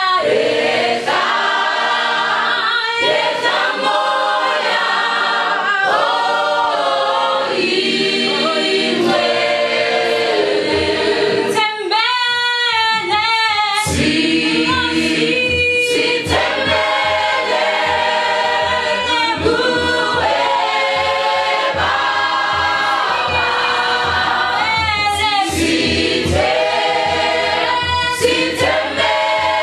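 Mixed choir of young men and women singing a gospel song a cappella, many voices in harmony moving in continuous phrases.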